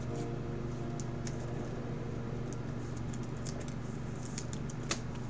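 Small plastic clicks and rustles of a trading card being handled and slid into a clear plastic toploader, over a steady low hum, with one sharper click near the end.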